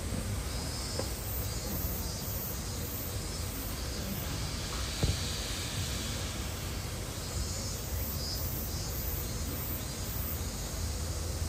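Steady outdoor background hiss with a low rumble underneath, and a single sharp click about five seconds in.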